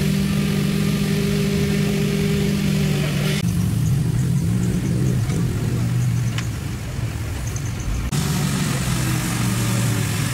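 Engine running steadily at idle, a low even drone, with sudden changes in its tone about three and eight seconds in.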